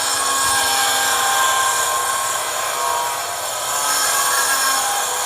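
Hand-held power cutter cutting through iron: a steady, loud grinding hiss with wavering whine tones as the blade works the metal.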